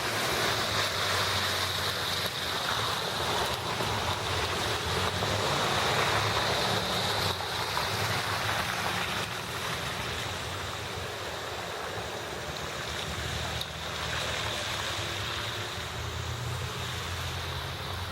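Steady rushing outdoor noise of traffic and wind, with a low engine hum underneath that grows a little stronger near the end.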